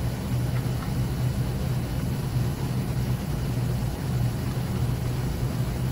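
Steady low-pitched background hum of workshop machinery or ventilation, with faint handling as a rubber pad is laid into a metal chassis.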